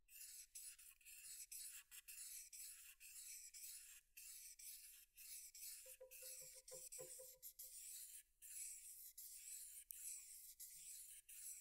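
Faint, repeated back-and-forth rasping of wet 400-grit sandpaper, wrapped around a half-round wooden stick, rubbing the trailing edge of a hydrofoil winglet as the edge is rounded off.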